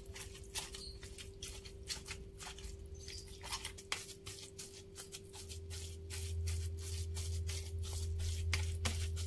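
A hand squeezing and crumbling soft white tofu in a plastic bowl: a run of small, irregular wet squishes, several a second. A steady faint hum lies under it, and a low rumble comes in about halfway through.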